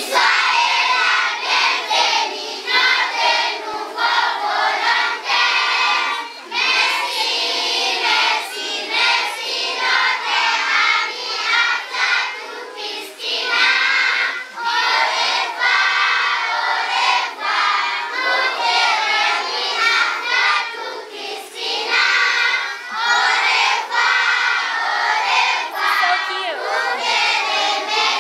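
A group of schoolchildren singing a goodbye song together without accompaniment.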